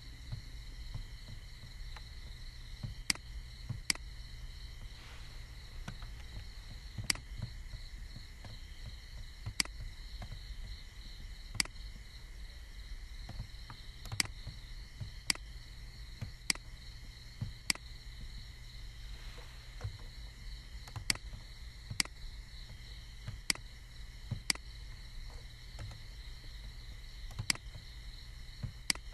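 Computer mouse clicking: single sharp clicks every second or two, over a steady electrical hum and a thin high whine from the recording setup.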